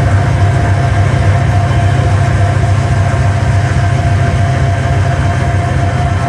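Loud, steady machine-like rumble with a rapid pulsing in the bass and a held mid-pitched tone above it, cutting in abruptly just before and running on unchanged: a drone section of a live electronic piece built from sea sounds.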